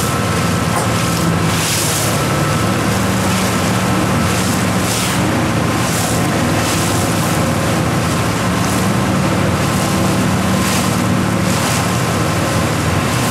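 Powerboat engines droning steadily over choppy water, with wind gusting on the microphone every second or two.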